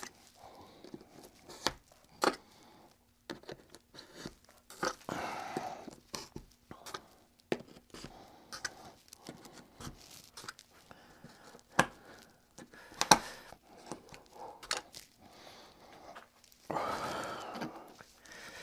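T-pins being pulled out of foam and cork with pliers: scattered sharp clicks and small rustles as the metal pliers grip and work the glued-in pins loose.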